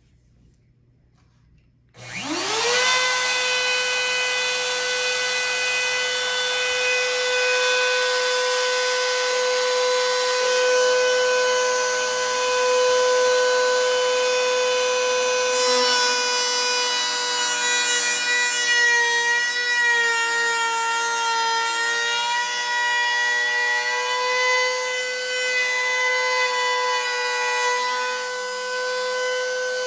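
Router switched on, spinning up with a rising whine about two seconds in and settling into a steady high whine. From about halfway, the pitch wavers and dips as the bit cuts the binding channel into the rim of a wooden guitar body.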